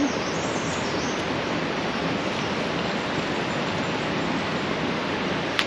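Fast-flowing stream water rushing over rocks, a steady, even rushing noise. A short click near the end.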